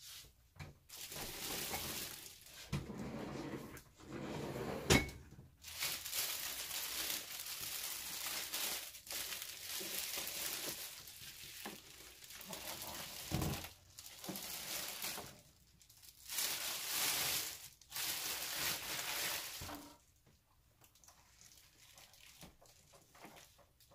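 Clear plastic packaging bag crinkling and rustling in repeated bursts as a mini fridge is unwrapped and handled, with a sharp knock about five seconds in and a dull thump around the middle. The sound dies down near the end.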